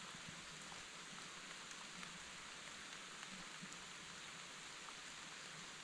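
Light rain falling steadily: a faint, even hiss with a few scattered drop ticks.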